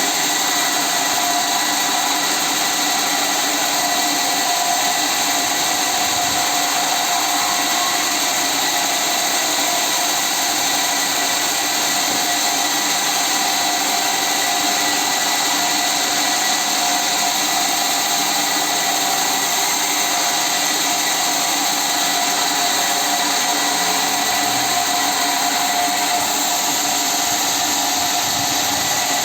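A motor-driven machine running steadily at constant speed, with an even whine that does not change.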